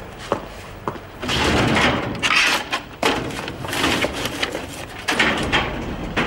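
Steel filing-cabinet drawer sliding open on its runners about a second in, papers handled inside it, then pushed shut with a knock a little after five seconds.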